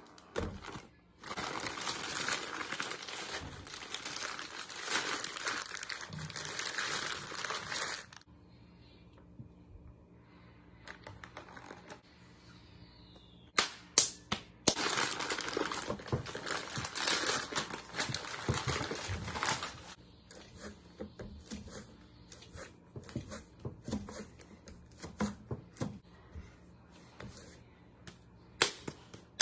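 Plastic clay bag crinkling loudly as it is handled and opened, in two long stretches with a few sharp knocks between them. Near the end, softer repeated slaps of a lump of wet clay being patted between the hands into a ball.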